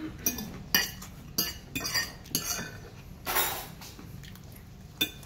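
Metal fork clinking and scraping against a plate while scooping up rice: a string of short, sharp clinks, with one longer scrape a little past three seconds in.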